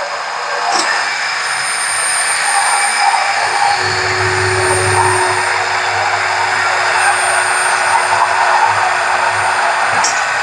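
Hand-held immersion blender running steadily in a glass bowl, emulsifying egg, mustard and oil into mayonnaise. A deeper hum comes in about four seconds in and fades near the end.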